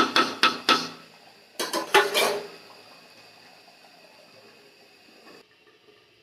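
Metal cookware clinking: a spoon knocked against the pan three times in quick succession, then a second flurry of clatter about a second and a half in as the pan is covered with its aluminium lid. After that only a faint steady hiss, which cuts off abruptly about five seconds in.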